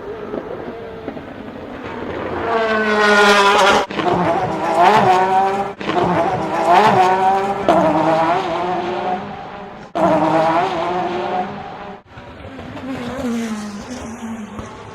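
Race cars accelerating past at full throttle, their engine notes rising in pitch and breaking off sharply several times as they shift up. The loudest passes come between about three and eight seconds in, another swells past near ten seconds, and it dies down to a more distant engine sound near the end.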